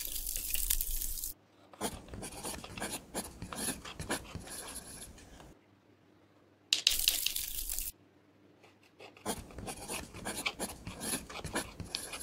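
Pressed eyeshadow being scraped and dug out of a plastic palette's pans with a pointed tool and crumbled: two runs of crackly scratching and crunching, each led by a short, louder hiss of rasping.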